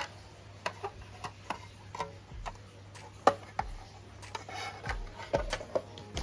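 Irregular light clicks and taps, a dozen or so spread unevenly, from handling a small diecast model car and its plastic packaging; the sharpest comes about three seconds in.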